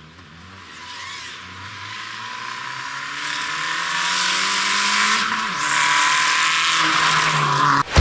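Fiat Egea 1.4 T-Jet rally car, its turbocharged four-cylinder engine running hard, approaching and growing steadily louder, with the engine note dropping about five seconds in.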